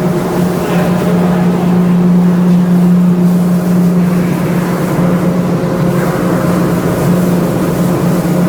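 A large engine running steadily, a constant low hum with fainter higher overtones over rushing noise.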